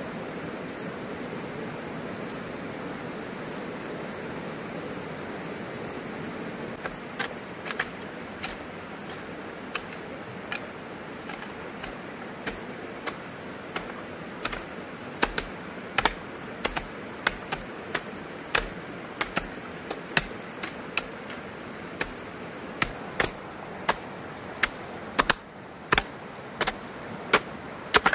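Repeated sharp chopping strokes of a hand tool, starting about seven seconds in, irregular at roughly one to two a second and growing louder, over a steady hiss.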